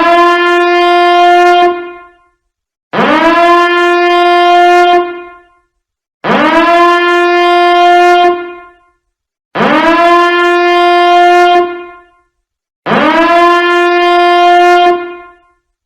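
Biohazard alarm horn sounding in repeated blasts, five in all, about one every three seconds. Each blast swoops up in pitch, then holds a steady buzzy tone for about two seconds before dying away.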